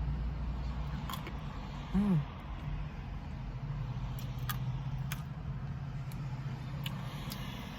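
Steady low hum of a car interior, with a few light clicks of a plastic spoon against the sundae cup. About two seconds in there is a short 'mm' from the eater, the loudest sound.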